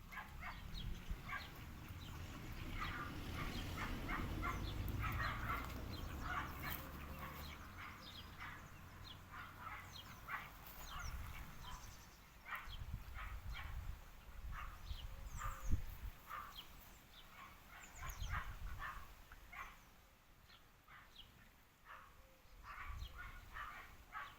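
Dogs barking repeatedly in short calls, with a low rumble under them during the first several seconds.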